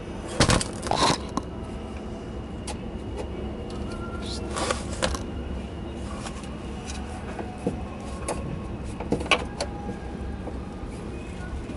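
Scattered metallic clicks and clinks of socket extensions being fitted together by hand, with a few sharper knocks near the start, over a steady low hum.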